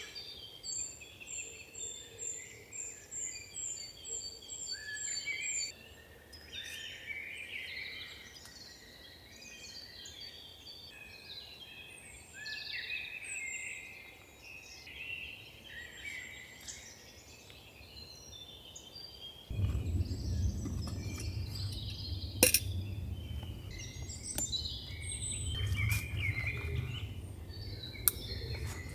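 Several songbirds singing in woodland, one repeating a quick series of about a dozen high notes in the first few seconds. About two-thirds of the way in, a low rumbling noise sets in abruptly and runs on with a few sharp clicks.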